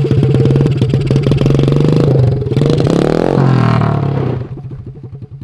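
A ute's engine revving hard under load, its pitch sweeping up and back down about three seconds in, then falling back to a quieter lower-speed run about four and a half seconds in.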